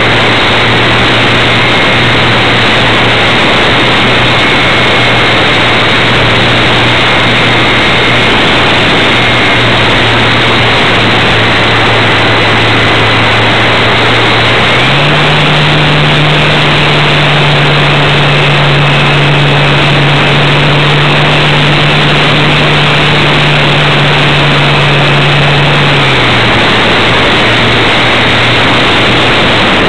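Motor and propeller of a radio-controlled Super Cub model airplane, picked up by a camera mounted on the plane itself with heavy wind rush: a loud steady drone with a faint high whine. Both jump up in pitch about halfway through as the motor speeds up, then drop back down a few seconds before the end.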